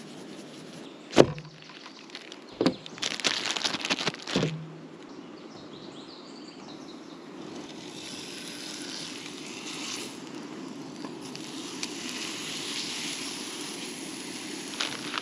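A sharp knock, another a second later, and a short spray hiss from a can, then ground beef burger patties sizzling steadily in a hot frying pan on a portable butane stove from about halfway on.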